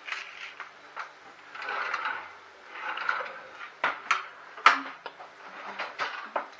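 Kitchen handling sounds at the stove: stretches of rustling broken by a series of sharp clicks and knocks of cookware and utensils, the loudest about two-thirds of the way through.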